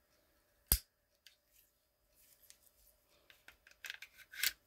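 Glock 29 pistol's slide and polymer frame being handled and fitted together: one sharp click about three-quarters of a second in, then a cluster of small clicks and scrapes near the end as the slide is worked onto the frame rails.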